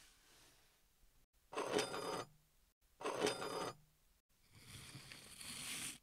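Foley of hard objects on a wooden surface: an object hits the wood twice, each a short clatter with a brief bright ring. Then an object scrapes across the wood for about a second and a half, growing louder until it stops.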